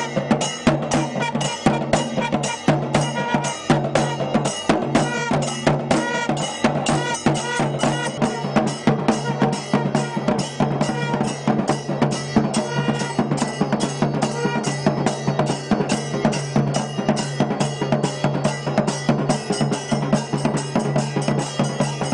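Traditional Tamil temple percussion: a drum beaten with sticks and small hand cymbals clashing together in a fast, steady rhythm over a steady low drone.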